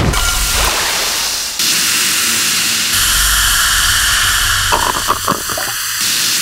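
Coca-Cola fizzing loudly over ice in a glass, a dense hiss of carbonation bubbles that changes abruptly a couple of times as the shots cut. A few short clicks come about five seconds in.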